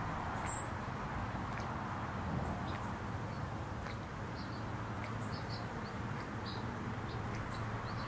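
Small birdbath fountain pump bubbling water steadily, with one sharp high bird chirp about half a second in and a few faint short bird chirps in the second half.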